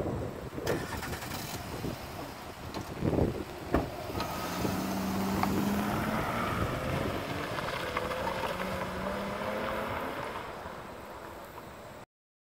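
SUV pulling away and driving past: a sharp knock just under four seconds in, then engine and tyre noise with a low hum that rises slightly as it moves off. The sound cuts off suddenly near the end.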